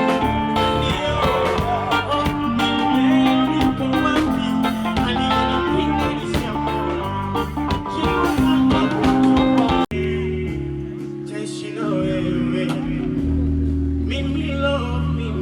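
Music with plucked guitar. About ten seconds in there is an abrupt cut, and after it the music is thinner, carried by a heavy bass line.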